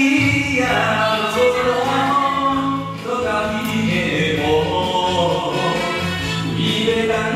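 A Taiwanese Hokkien ballad sung over a backing track, with the voice carrying the opening line's melody.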